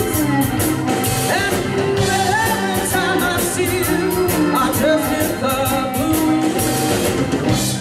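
Live blues band playing the last bars of a song: electric guitar, drum kit with steady cymbal strokes, keyboard and harmonica with bending notes. The band stops together at the very end.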